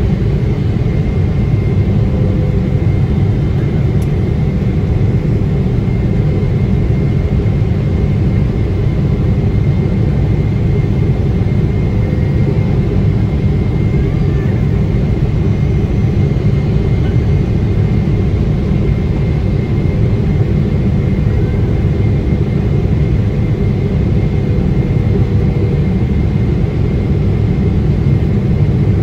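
Steady cabin roar of a Boeing 777-300ER in flight, from its GE90 engines and the airflow over the fuselage, even throughout with a faint high steady whine above it.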